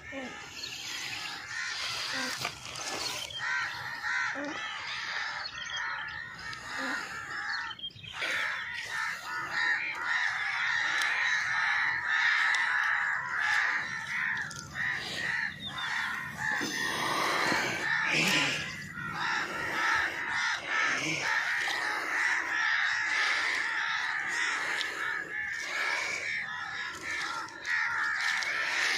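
A flock of birds calling together in a continuous, dense chattering chorus, many short calls overlapping.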